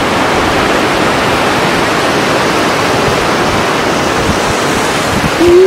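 Steady, loud rush of shallow surf washing over sand. A voice comes in near the end.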